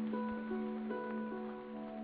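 Background music: a plucked string instrument, guitar-like, playing a melody of short notes over a held low note.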